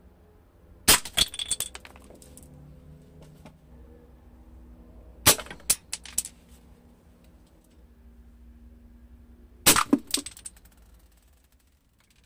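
Three airsoft shots of 0.43 g BBs striking wooden kitchen spoons at close range, about four seconds apart: each a sharp crack of the hit followed by a quick rattle of small clicks as the BB and wood bounce and clatter.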